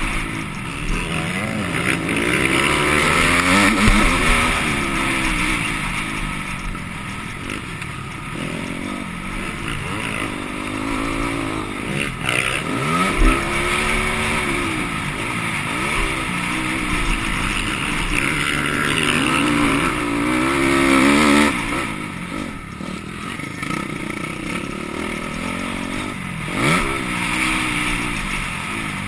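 Motocross bike engine revving up and dropping off over and over as the rider accelerates, shifts and backs off around a dirt track. A few sharp knocks stand out, about 12 to 13 seconds in and again near the end.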